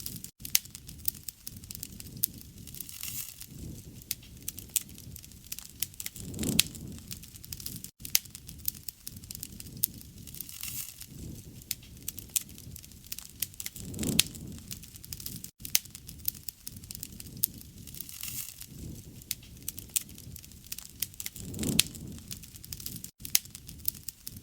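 Campfire burning: wood crackling with frequent sharp pops over a low rush of flame that swells now and then. It is a short recording looped, the same pattern coming round about every seven and a half seconds with a brief dropout at each join.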